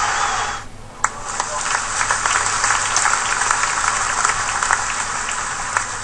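A steady hiss that cuts off suddenly under a second in, then applause: many scattered hand claps over a soft wash of noise.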